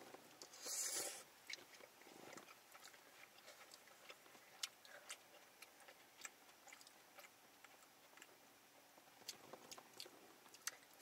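Quiet chewing of thick udon noodles: faint wet mouth clicks and smacks scattered throughout, with a brief louder noise about a second in.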